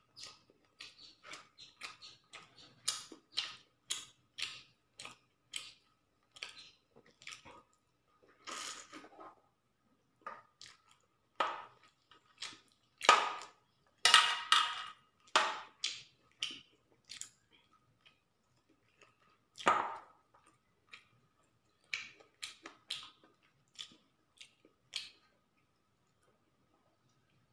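A person chewing and smacking their lips while eating chicken curry and rice by hand: irregular runs of short wet clicks and smacks, loudest in a cluster a little before the middle and once more later, dying away near the end. A faint steady thin tone sits underneath.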